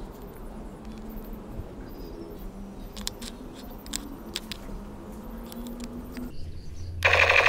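Small plastic clicks and taps as the battery compartment of a toy sniper rifle is opened and AA batteries are handled. Near the end the toy rifle's electronic sound effect starts, much louder.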